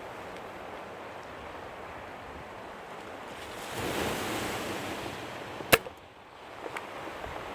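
Surf washing on the shore, swelling about halfway through, then one sharp crack of a .22 Webley Hurricane spring-piston air pistol firing, the loudest sound here. A couple of faint clicks follow shortly after.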